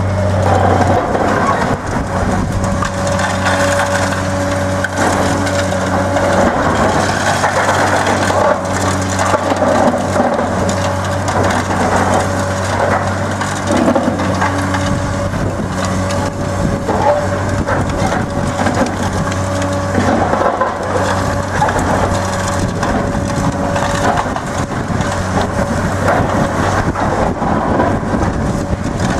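Demolition shears on a CAT 385C high-reach excavator crushing reinforced concrete, with crackling and crunching as chunks break away and fall, over the steady hum of the excavator's diesel engine and a constant higher whine.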